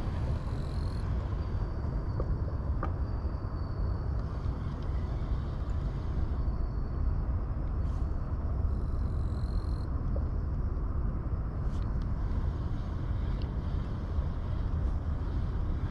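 Steady outdoor background noise, mostly a low rumble, with a faint thin high tone coming and going and a few faint ticks.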